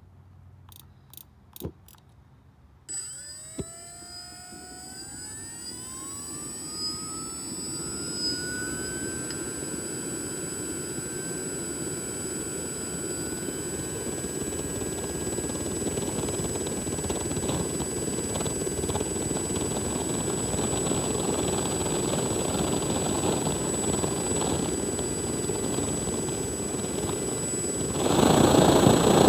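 Homemade jet engine's compressor spinning up: a few clicks, then about three seconds in a whine starts and rises in pitch for several seconds before settling, under a rush of air that keeps building. Near the end the sound suddenly gets much louder as the fuel lights and sparks begin to blow from the nozzle.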